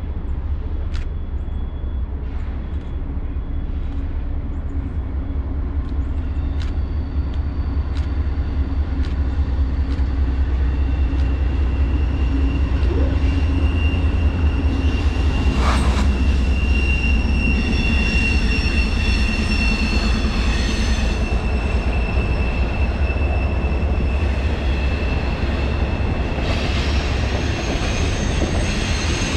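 Norfolk Southern freight train with a Union Pacific SD70AH trailing: its diesel locomotives approach and pass with a heavy low rumble, growing louder over the first half. Double-stack intermodal cars then roll by, their wheels squealing with thin high tones on the curve.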